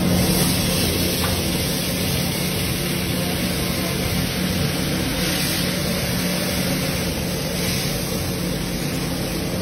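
Steady roar and hiss of a gas burner under an iron tawa, with oil sizzling as a masala-coated pomfret is turned, over a constant low hum.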